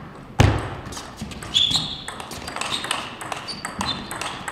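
Table tennis rally: the celluloid-style ball clicking sharply off rackets and table in quick succession, with a loud thump about half a second in and a few short high squeaks of shoes on the rubber court floor.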